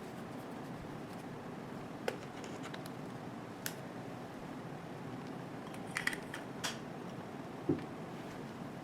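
Fujifilm X-T2 camera and lens being handled: a few scattered sharp clicks and a soft knock near the end, over a steady low hiss.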